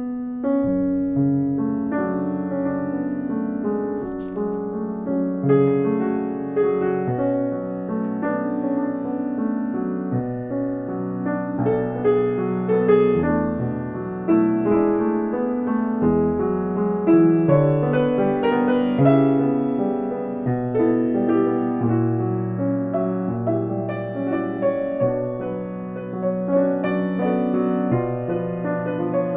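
Piano playing a slow piece of music, with notes and chords sustained and changing about once a second.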